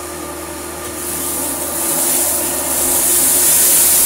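Hitachi CV50-D vacuum cleaner running on carpet with its brush roll turning: a steady motor whine under a rushing hiss that grows louder from about a second in.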